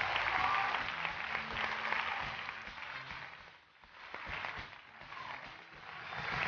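Studio audience applauding. The clapping dies down a little past halfway, then builds again near the end.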